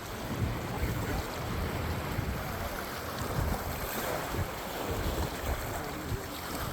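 Wind buffeting the microphone in uneven gusts, over a steady wash of waves breaking on the rocks.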